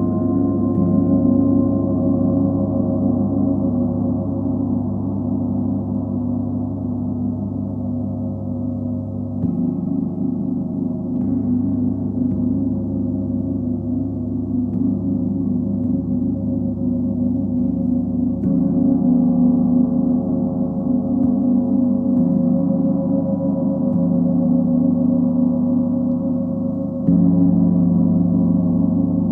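Large planetary gongs rubbed and struck with a soft mallet, sustaining a dense, continuous low wash of overlapping ringing tones. Fresh soft strokes every few seconds keep it swelling, with a louder stroke near the end.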